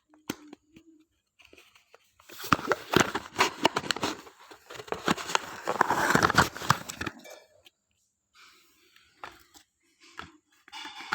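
Cough syrup packaging being torn open and crinkled by hand: a dense run of crackling and tearing that lasts about five seconds, then fainter scattered rustling near the end.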